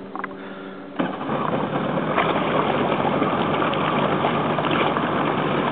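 Motorboat engine idling with a steady hum. About a second in, a sudden, loud, steady rush of engine and water noise takes over.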